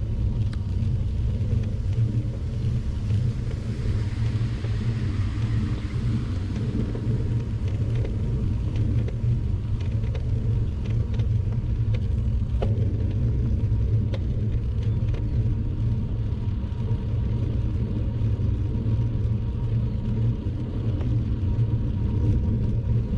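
Steady low rumble of wind buffeting the microphone and road noise from a bicycle ride, with a few faint clicks.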